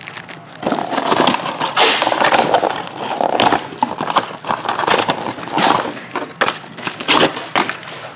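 Card-box packaging being torn open and handled: irregular crinkling, tearing and crackling of wrappers and cardboard, with many sharp clicks.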